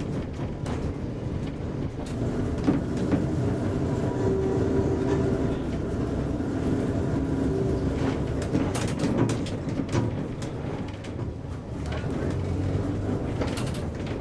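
1926 SS A1 tram (ASEA-built motor car) running slowly on street track, heard from inside its open driver's cab: a steady rumble and hum with a few knocks and rattles from the old car body and wheels on the rails.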